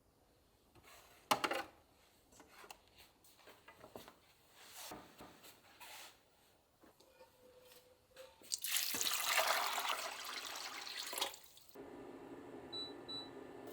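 Kitchen tap running into a sink for about three seconds, the loudest sound, shutting off abruptly. Before it come scattered light knocks and clinks of kitchenware being handled, and after it a softer steady hiss.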